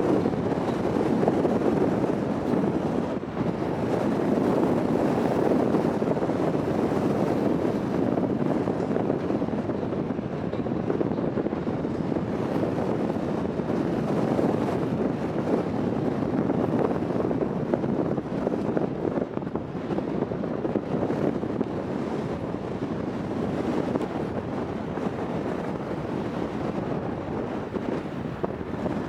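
Steady rushing wind on the microphone over the low noise of a departing car ferry and the sea, with no distinct tones.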